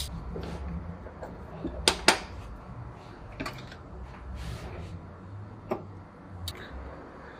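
Kingrinder K4 hand coffee grinder being handled while it is taken apart: sharp clicks and knocks of its parts as the powder bin comes off and the body is set down and picked up, the loudest two close together about two seconds in. A low steady rumble runs underneath.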